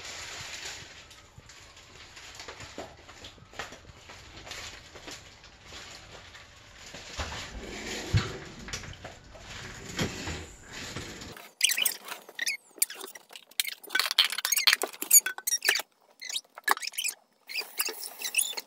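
Rice being washed by hand in water in a rice cooker's inner pot: soft swishing and stirring of wet grains. About two-thirds of the way through this gives way to louder, sharp, irregular clicks and scratches with brief pauses.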